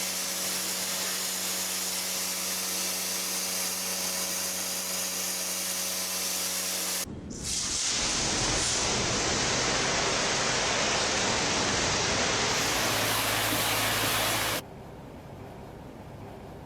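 Steady hissing noise from workshop tools in three even stretches that change abruptly. A hiss with a steady hum under it lasts about seven seconds, a louder and fuller hiss follows, and a quieter hiss runs for the last two seconds.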